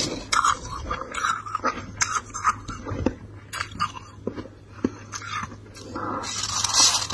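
Metal spoon scraping and scooping soft, snowy freezer frost, with irregular short crunching scrapes.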